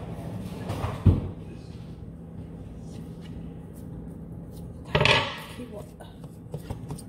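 Kitchen handling sounds: a sharp knock about a second in, then a short louder clatter about five seconds in, over a steady low hum.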